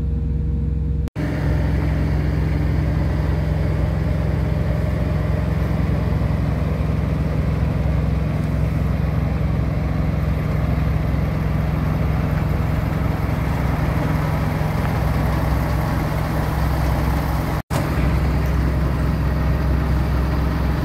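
Semi-truck diesel engines idling: a steady low drone that drops out for an instant twice.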